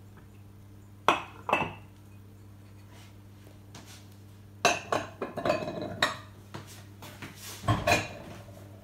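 Ceramic bowls knocking and clinking as they are picked up and set down on a wooden tabletop, in a few short clatters: a pair about a second in, a longer run of knocks around the middle, and another pair near the end.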